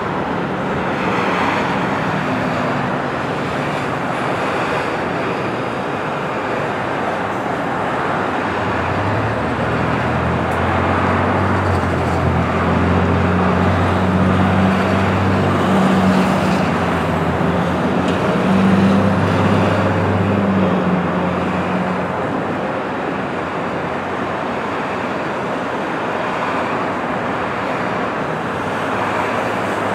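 Steady road traffic noise from passing cars and trucks. A low engine drone rises under it from about eight seconds in and fades again after about twenty seconds.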